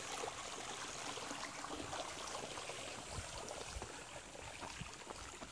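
Shallow creek running over rocks in small rapids, a steady trickling rush that grows a little fainter toward the end.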